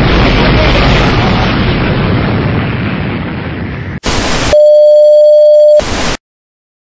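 Rumble of a nuclear explosion, slowly fading. About four seconds in it cuts abruptly to a burst of TV static, then a loud steady beep tone for just over a second, then static again, before the signal goes dead and the sound stops suddenly.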